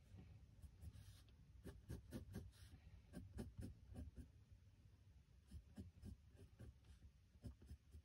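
Pencil sketching on sketchbook paper: faint, short scratchy strokes in irregular runs, with a brief pause a little past the middle.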